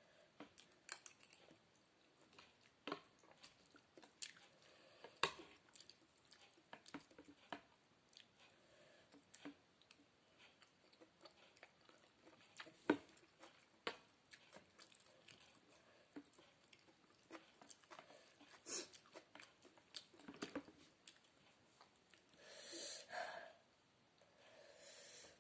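Quiet, close-up chewing of spaghetti-noodle sopas, with scattered faint clicks. A longer, louder noise comes about three-quarters of the way through.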